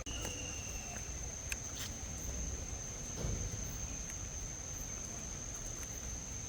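Tropical forest ambience: a steady, high-pitched insect drone, with a thin falling whistle near the start and a couple of sharp clicks, over a low rumble.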